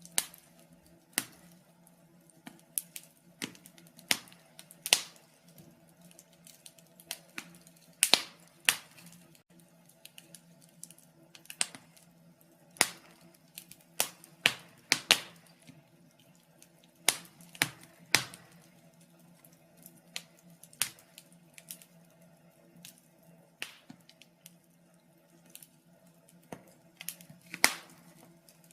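Wood fire crackling in a fireplace: sharp, irregular pops and snaps come at uneven intervals, some much louder than others, over a faint steady hum.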